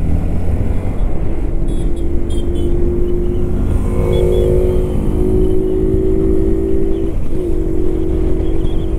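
Single-cylinder engine of a Hero Xpulse 200 4V motorcycle running steadily at highway cruising speed under heavy wind rush, with a steady engine note that dips briefly and recovers about seven seconds in.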